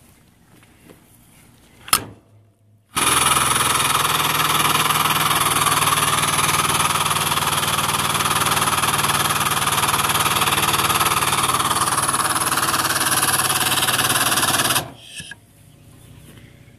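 Air-over-hydraulic foot pump running with a rapid mechanical chatter and air hiss for about twelve seconds, building oil pressure in a Ford 6.0L high-pressure oil rail for a nipple-cup leak test. It starts abruptly after a sharp click and cuts off suddenly near the end.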